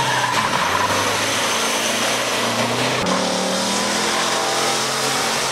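Off-road rally trucks' engines running hard. A pickup's engine is heard at the start line, then after a cut about three seconds in, a Ford Raptor race truck is driving at speed on a dirt track.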